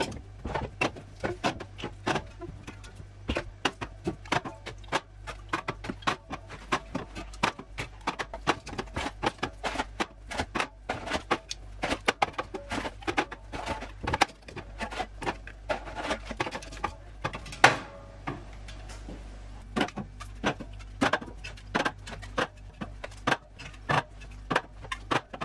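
Aluminium drink cans clinking and knocking against each other and on a glass fridge shelf as they are set down in rows: a rapid, uneven run of light clicks and taps.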